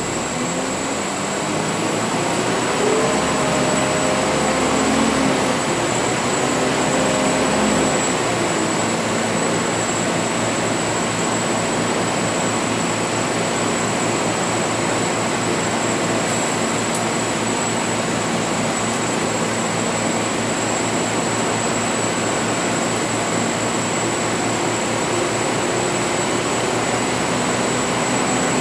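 Volvo B10BLE CNG bus heard from inside the passenger cabin while under way: steady engine and road noise. The engine note climbs over the first few seconds, a deep rumble drops away about eight seconds in, and the sound then holds steady.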